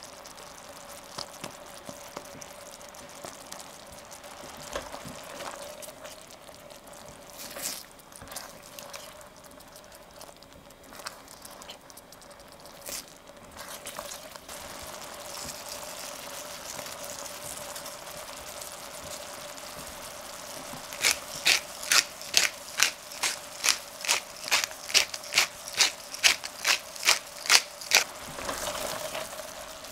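Sauce simmering in a stainless steel pan and stirred with a silicone spatula, with a steady hum underneath. In the last third a pepper mill is twisted over the pan: about two sharp grinding clicks a second for some seven seconds, the loudest sound here.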